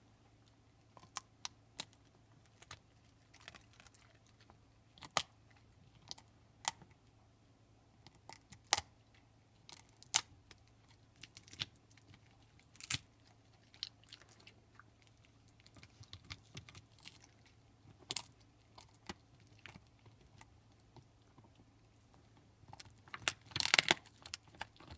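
Pit bull gnawing on a beef bone: irregular sharp crunches and cracks of teeth on bone, with a louder flurry of crunching near the end.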